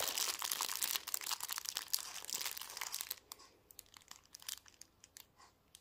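Clear plastic packaging crinkling as it is handled: dense for about three seconds, then a few scattered crackles that die away.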